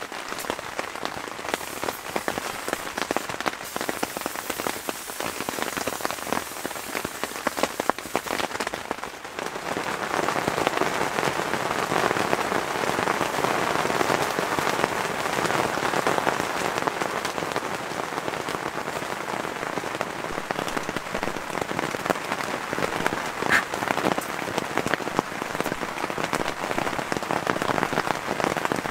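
Rain falling on a hot tent's fabric and clear plastic window, heard from inside: a dense patter of drops that turns louder and fuller about ten seconds in.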